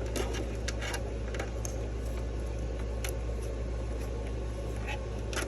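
Light clicks and rustles of fabric and thread being handled at a sewing machine, over a steady low hum; the machine is not stitching.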